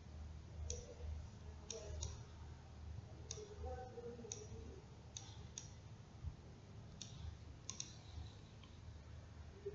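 Faint computer mouse clicks, about ten of them at irregular intervals, some in quick pairs, over a low steady hum.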